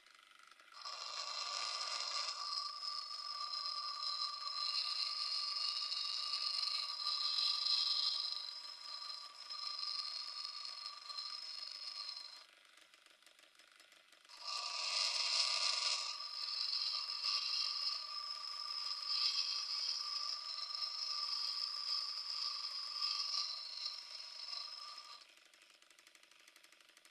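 Washing machine motor and its mechanism running in two spells of about ten seconds each, with a steady whine and a mechanical rattle, stopping for about two seconds between them.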